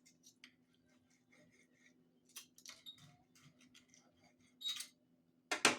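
Eating utensils clicking and scraping against a plate while cutting into soft stuffed cabbage: a scatter of light clicks with a couple of louder scrapes near the end.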